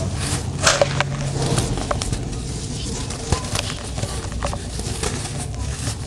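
Hands crumbling and squeezing lumps of dry, dusty grey dirt: a gritty, crunchy crackle of breaking lumps and falling powder. There are sharp crunches about two-thirds of a second in, again at about a second, and once more a little past three seconds.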